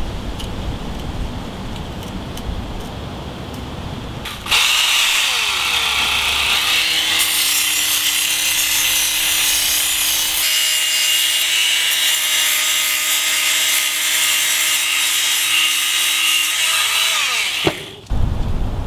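Work Sharp Ken Onion belt sharpener switching on and running, its narrow abrasive belt grinding a wooden knife handle with a steady motor whine and a high rasping hiss. Its pitch dips soon after it starts, and it winds down and stops shortly before the end.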